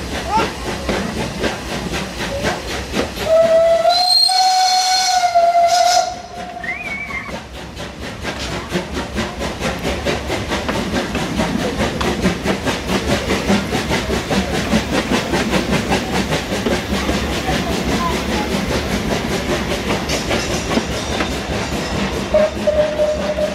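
Krauss steam tram locomotive FP 4 "Rimini" running along the track, its wheels and steam making a steady, fast, regular clatter with a hiss. About three seconds in its steam whistle sounds one long, loud blast of nearly three seconds, and a shorter steady tone follows near the end.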